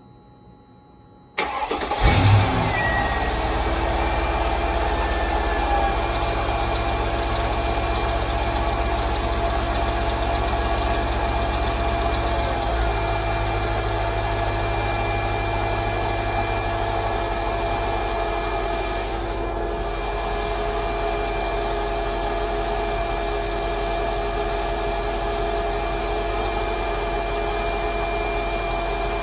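Mercedes ML55 AMG's 5.4-litre V8 starting about a second and a half in, flaring briefly and then settling into a steady idle. Over the idle runs the steady whine of the secondary air pump, which the owner calls the classic secondary air pump whine.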